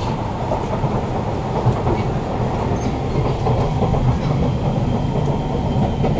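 Siemens C651 metro train running at speed, heard from inside the carriage: a steady rumble of wheels on rail.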